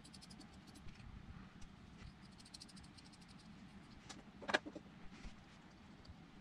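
Faint ticks and light metallic rattling of a small panel-mount toggle switch and its nut being handled and threaded, with one sharper click about four and a half seconds in.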